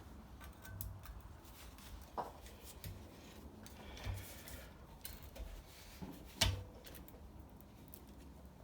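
Quiet handling of a heavy transformer during dismantling: scattered light clicks and taps, a knock about two seconds in and a louder, sharp knock about six and a half seconds in.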